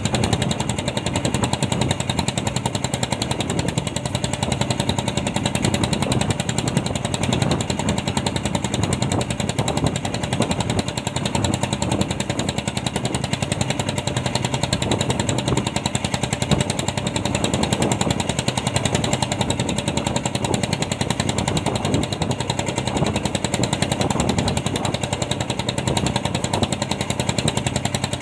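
Fishing boat's engine running steadily, a rapid, even pulsing that keeps the same speed throughout.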